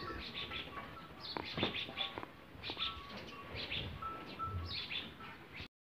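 Small birds chirping, many quick short calls overlapping, with a few low thuds under them; the sound cuts off just before the end.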